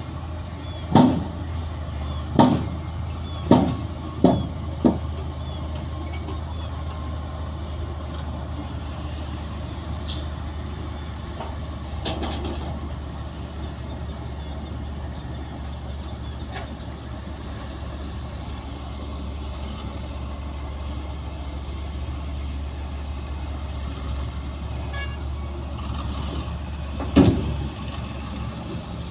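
Heavy diesel earthmoving machinery running steadily under load, with a series of loud metallic knocks: five in quick succession early on and one more near the end.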